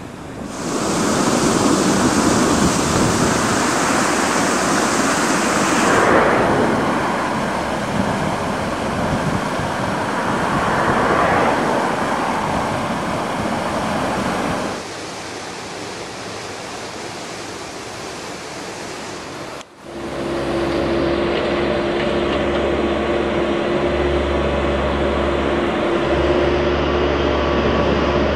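Water rushing over a weir with wind on the microphone. After a cut about twenty seconds in, a Truxor amphibious dredger's engine runs with a steady drone.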